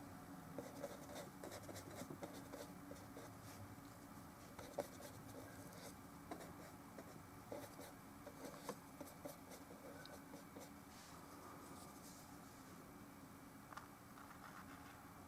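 Faint scratchy strokes of an oil paintbrush on a canvas panel, with small irregular ticks and taps scattered through.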